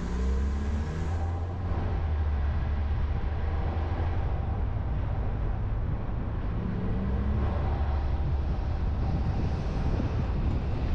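Car driving on the road: a steady low rumble of road and engine noise with a hiss of wind.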